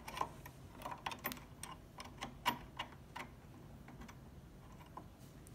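Small metal clicks and taps of a Singer C5200 sewing machine's bobbin case and hook being handled and fitted by hand; irregular and frequent for about three seconds, then only a few more.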